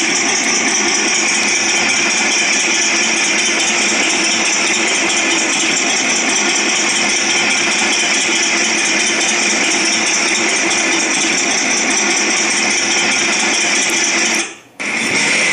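Recorded Tiger I tank engine sound effect played through the small speaker of a cheap MP3 player fitted in a Heng Long RC tank: a steady, buzzy engine sound. It cuts out briefly near the end, then resumes.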